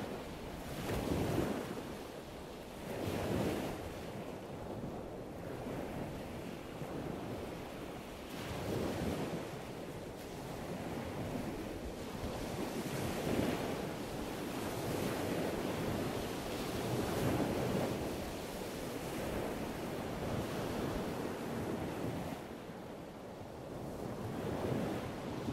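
Ocean surf: waves washing in, swelling and falling back every few seconds, mixed with wind.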